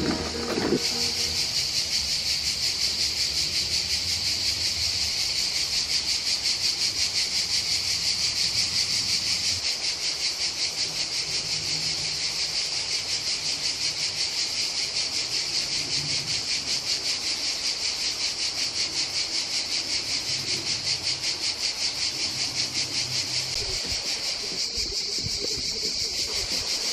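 Cicadas singing in a dense, steady chorus: a fast, pulsing buzz.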